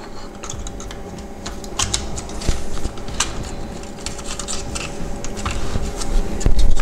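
Plastic housing parts of a VW instrument cluster being handled and fitted back together: irregular small clicks and taps, with louder knocks near the end.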